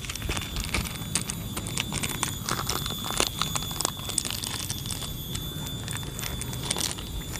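Small plastic sachet of powder crinkling and crackling irregularly as it is torn open and handled. A faint steady high tone runs underneath.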